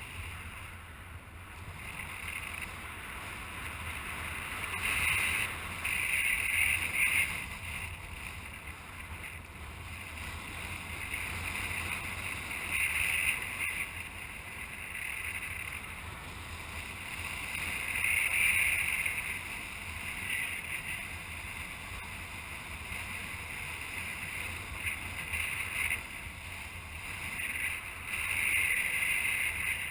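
Airflow rushing over the camera microphone of a paraglider in flight: a steady low rumble with a hiss that swells and eases in gusts every few seconds.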